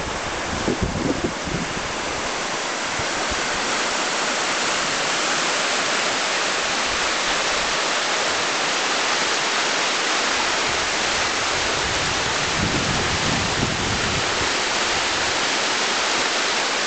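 Clinton River, a clear, shallow mountain river, rushing steadily over its stony bed in a continuous hiss of running water. A few low buffeting bumps of wind on the microphone come about a second in and again around two-thirds of the way through.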